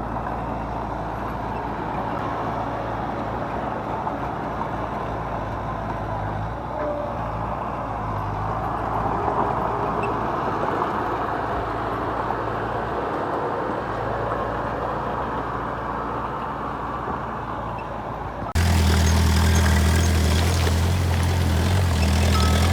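Heavy construction machinery running: a steady diesel engine drone. About three-quarters through it switches abruptly to a louder, deeper, closer engine sound with a strong low hum.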